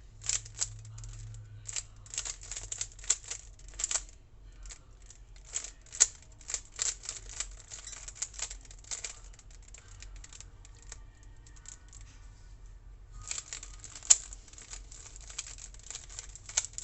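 A Rubik's Cube being turned by hand: rapid clicking and clacking of its plastic layers, in quick runs of turns. There is a sparser stretch a little past halfway, then fast turning again.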